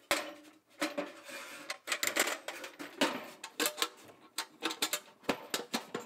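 Old pressed-steel tool box being closed and handled: a quick, irregular run of sharp metal clanks and clicks from the lid, the socket tray and the latch.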